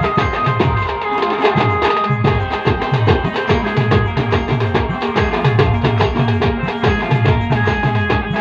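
Band music: a fast steady drum beat, each low drum hit falling quickly in pitch, under held melody notes.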